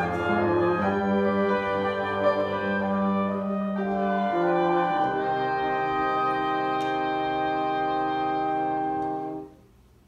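Live chamber music from a small ensemble of wind instruments and piano playing slow sustained chords, closing on a long held final chord that ends about nine and a half seconds in.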